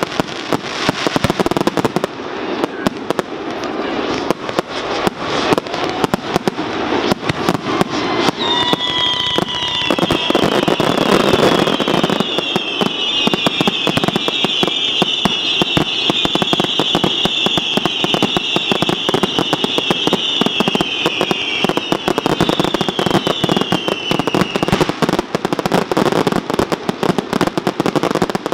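A fireworks barrage: a dense, unbroken string of bangs and crackling bursts. From about 8 seconds in, a swarm of high whistles falling in pitch joins it for about sixteen seconds.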